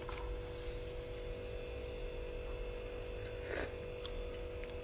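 Steady low electrical hum, with a faint brief rustle about three and a half seconds in.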